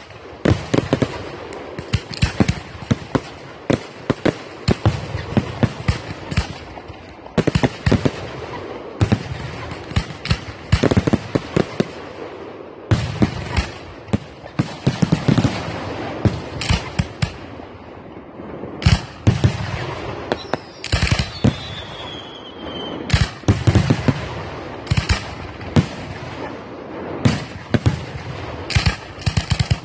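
Fireworks display: aerial shells bursting in quick, irregular succession, bang after bang with crackle between. A single falling whistle is heard a little past two-thirds of the way through.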